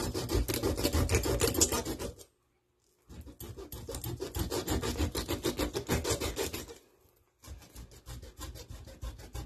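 Kitchen knife sawing rapidly back and forth through a whole fish's scaly skin on a plastic cutting board as the fish is scored: a fast, rasping scrape in three runs, with short pauses about two and seven seconds in. The cook finds the knife is not cutting well.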